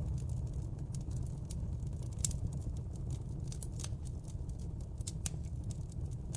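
Wood fire crackling in a fireplace: irregular sharp snaps and pops over a steady low rumble of the burning, with a louder pop a little over two seconds in.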